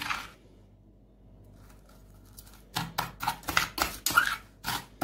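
Metal spoon scraping and stirring through ground-up chalk on a glass plate. After one stroke at the start and a pause of about two and a half seconds, a quick run of scrapes follows, about three or four a second.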